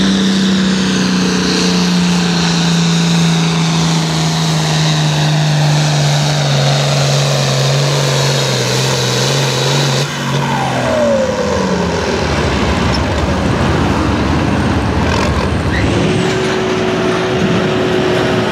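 International Harvester farm tractor's engine under full load pulling a weight-transfer sled, its pitch slowly dropping as it bogs down. About halfway through the sound breaks off and an engine winds down with falling pitch. Near the end another tractor engine runs at steady high revs.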